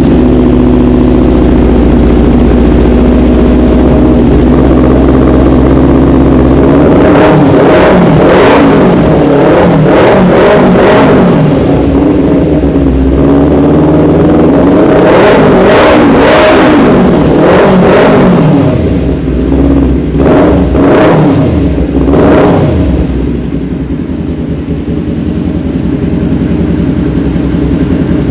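Kawasaki Ninja 250 FI parallel-twin engine running through an aftermarket R9 H2 titanium exhaust. It idles for several seconds, then is blipped sharply again and again, each rev falling back quickly, before settling toward idle near the end.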